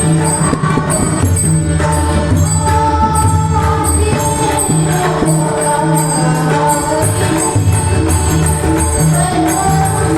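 A Marathi Varkari bhajan: a woman's voice singing a devotional melody over pakhwaj and tabla drumming, with steady jingling percussion keeping the beat.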